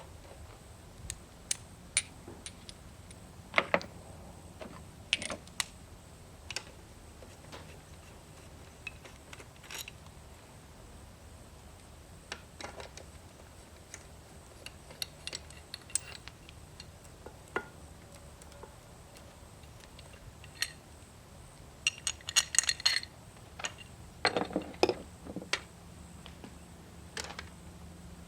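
Hand tools and metal parts clinking and clicking at irregular intervals while a starter motor is unbolted from an outboard engine, with a quick flurry of clinks about three-quarters of the way through.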